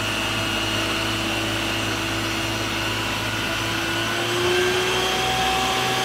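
Isuzu water tanker truck's engine running steadily while driving the pump for its roof-mounted water cannon, which sprays a high jet of water: a continuous mechanical drone over a steady hiss, its pitch lifting slightly about four seconds in.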